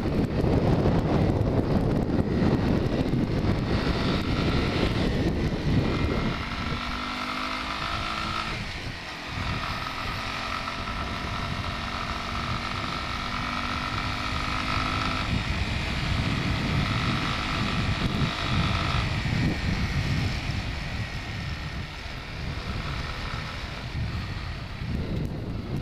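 1989 Yamaha Moto 4 250 ATV's single-cylinder engine running steadily at road speed, with heavy wind buffeting the microphone. The wind noise eases for a stretch in the middle, leaving the engine's steady note clearer, then returns near the end.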